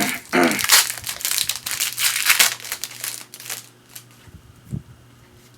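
Wrapper of a Topps baseball card pack being torn open and crinkled, a dense crackling for about three and a half seconds that then dies away, with one soft thump near the end.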